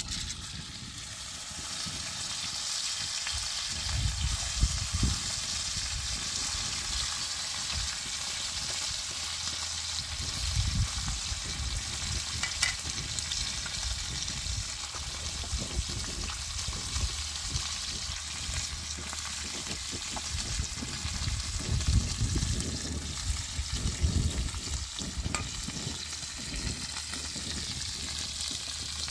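Whole fish frying in hot oil in a shallow iron pan over a wood fire, a steady sizzle throughout, with occasional low rumbles.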